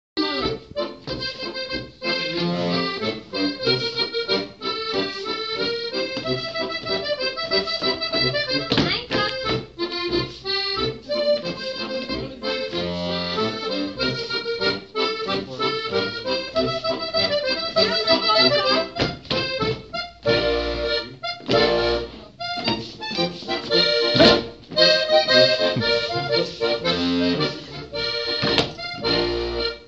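Accordion playing a traditional folk dance tune in a steady rhythm, with the dancers' steps knocking on the floor now and then, most strongly in the last third.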